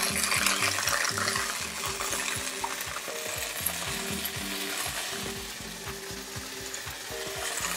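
Sliced bell peppers, onions and carrots sizzling steadily in a hot nonstick frying pan while a spatula stirs tamarind paste through them.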